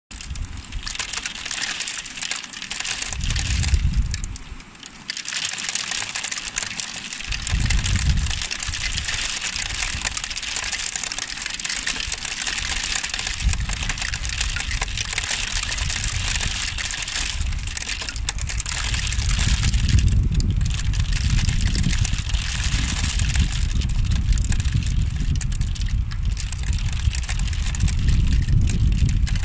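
Hail and rain pelting a flat outdoor surface, a dense, steady crackling patter. A low rumble of wind buffeting the microphone comes in short gusts early on and stays from about halfway through.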